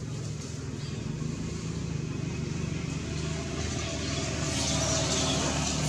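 Steady low background rumble with a hiss over it, getting a little louder in the second half.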